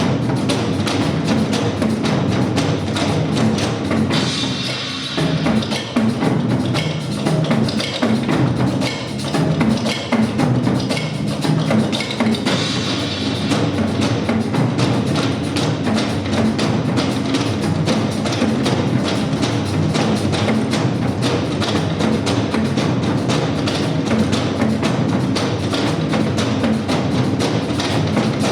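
Ensemble nanta drumming: many drums struck in a fast, dense rhythm without a break, with a brighter, hissing wash over the beat about four seconds in and again about twelve seconds in.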